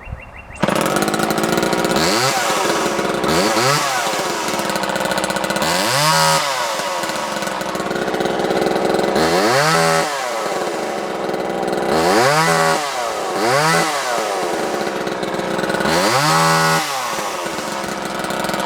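Homelite XL-2 two-stroke chainsaw running at idle and being revved about seven times, the engine note climbing and falling back to idle each time. It runs smoothly throughout.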